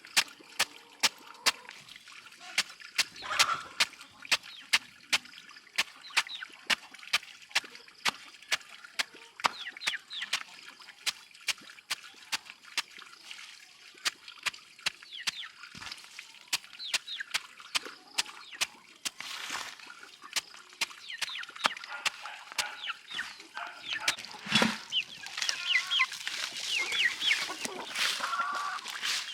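Chickens clucking, with short high calls growing busier near the end, over a steady series of sharp knocks about two a second.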